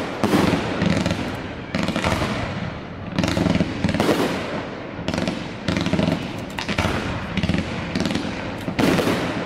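Fireworks display: fanned comets and aerial shells firing in a rapid run of sharp bangs, roughly one every second, some in quick pairs.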